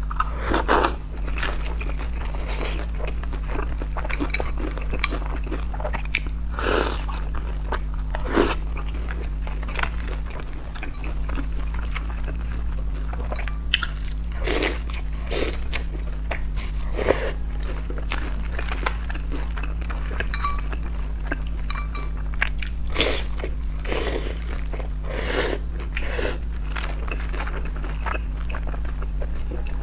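Close-miked eating of pan-fried dumplings with a crispy lace skirt: irregular crisp crunches as the fried crust is bitten, and wet chewing in between, over a steady low hum.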